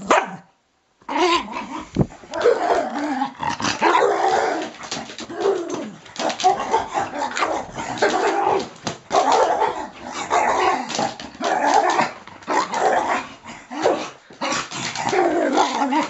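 Parson Russell terrier growling and barking excitedly in rough play at a hand, near-continuous from about a second in.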